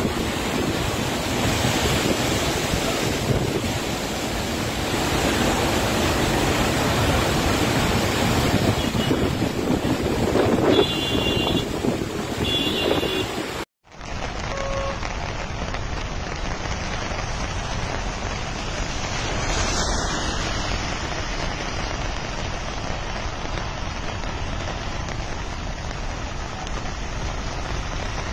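Muddy floodwater cascading down a hillside in a loud, steady rush, with wind buffeting the microphone. About halfway through, the sound drops out for a moment and gives way to a quieter, even hiss of rain and wind.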